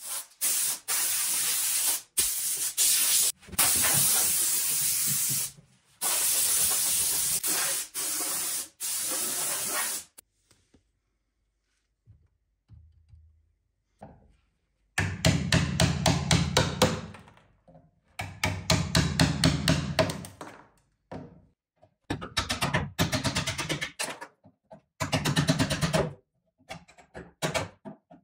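Compressed-air blow gun hissing in several long bursts as it blows dust off a wooden dresser. After a pause, a hammer strikes a chisel in quick runs of sharp taps, chipping old wood from inside the dresser frame.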